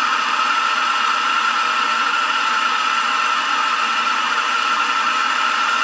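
Handheld gas blowtorch flame burning with a steady hiss, heating a brass transition elbow on copper pipe to solder the joint.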